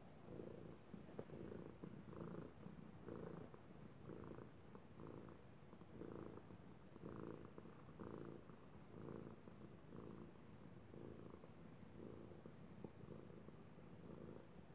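Tabby house cat purring steadily while being stroked, a faint low rumble that swells and fades in waves about once a second, likened to a water heater.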